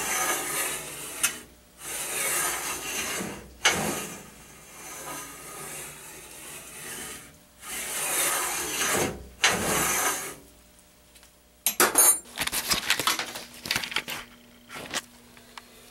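Steel carriage block of a homemade lathe rifling attachment pushed by hand along its steel guide rails, metal sliding on metal in several rasping strokes of a second or so each. Near the end, a run of quick clicks and rattles.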